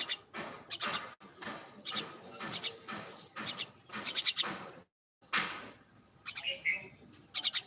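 A bird giving a rapid series of short, harsh chattering calls, with the sound cutting out completely for a moment about five seconds in.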